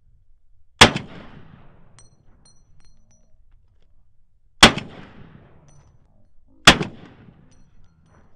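Three single rifle shots from an M4-style 5.56 mm carbine fired semi-automatically, each a sharp crack with a short echoing tail; the second comes about four seconds after the first and the third two seconds after that.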